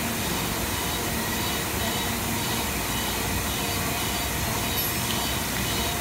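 Steady, even machinery noise with a low rumble: workshop equipment running continuously, with no distinct knocks or changes.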